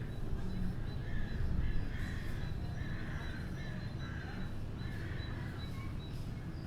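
A bird giving harsh, crow-like calls over and over, roughly one a second, over a steady low rumble of background noise.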